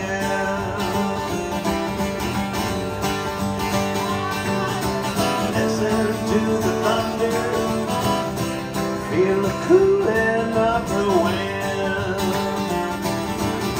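Live country song on a strummed acoustic guitar, with a bending melody line carried over the steady chords.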